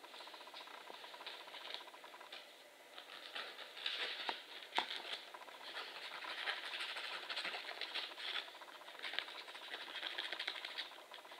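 A nail file rasping against a green-winged macaw's claws in quick, fine strokes. The strokes come in bursts of a second or two, with a few sharp clicks between them.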